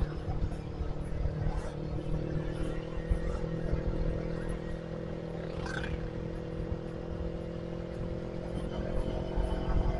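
Motorcycle engine running at a steady cruising speed, with wind rumble on the microphone.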